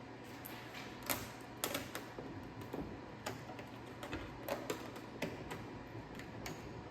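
Irregular light clicks and taps, about a dozen, over a steady low hum.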